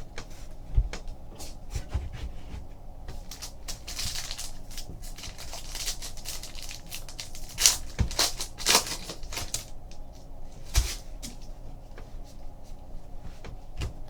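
Trading card packs and cards being handled: short bursts of rustling and crinkling, light clicks, and a few sharp knocks on the table.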